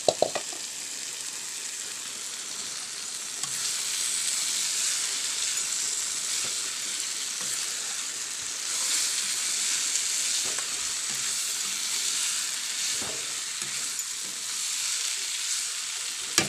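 Fried prawns sizzling in hot oil and tomato masala in a kadai as they are stirred in with a metal ladle. There are a few sharp metal clinks right at the start, and the sizzle grows louder a few seconds in.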